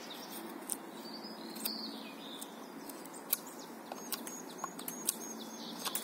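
Scandi-ground puukko knife carving a wooden branch, with several sharp clicks as the blade bites and shaves. Small birds chirp throughout, with a quick run of high chirps partway through.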